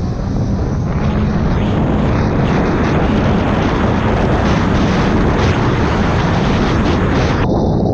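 2021 Sea-Doo RXP-X jet ski's supercharged Rotax three-cylinder engine running hard at race speed. Steady, loud engine and jet-pump noise is mixed with wind and water rushing past the onboard camera.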